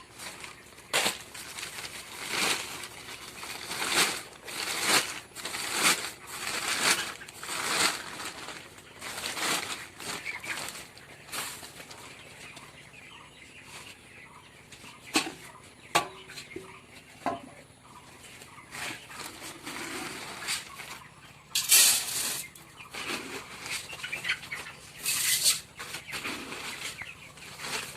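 A flock of poultry chickens flapping their wings and clucking. Irregular bursts of rustling come about once a second, ease off for a while in the middle, and return louder near the end.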